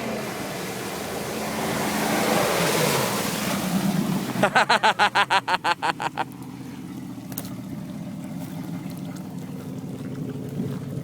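Range Rover P38 engine running as the truck pushes through water, with a rush of splashing water that swells and then fades. About four and a half seconds in comes a quick run of about ten sharp pulses lasting under two seconds, then the engine runs on steadily.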